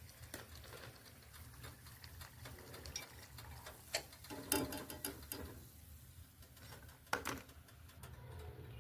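Scattered light clicks and knocks of kitchen handling over a steady low hum, with sharper knocks about four, four and a half, and seven seconds in.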